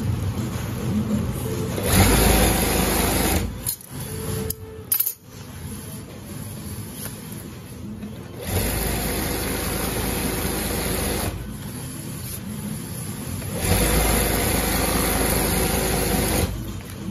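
Industrial sewing machine stitching heavy black fabric in three runs of a few seconds each, with quieter pauses between them and a sharp click in one pause.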